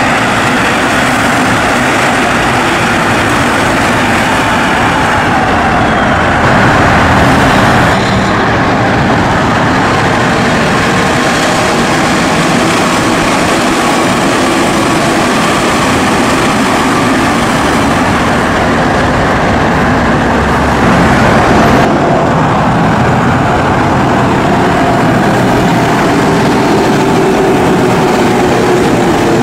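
Rubber-tyred metro trains passing close by, a steady loud rumble of tyres on the running track with a whine from the traction equipment that glides in pitch and falls near the end. The sound changes abruptly about a quarter of the way in and again about three quarters of the way through.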